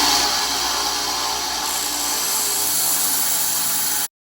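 A power tool running steadily against a piece of stag antler, shaping it down, with a dense even noise that cuts off suddenly near the end.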